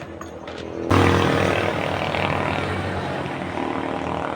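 A motor starts abruptly about a second in and keeps running steadily and loudly.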